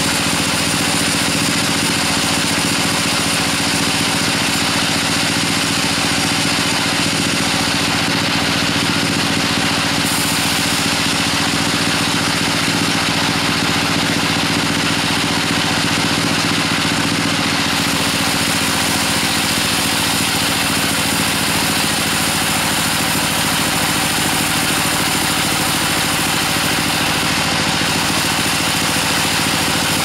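Band sawmill running steadily, its blade cutting lengthwise through a gmelina (white teak) log, over the even drone of the mill's drive.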